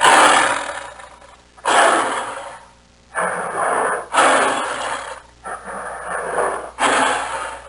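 Tiger roaring: a series of about six harsh, breathy calls, each about a second long, with short pauses between.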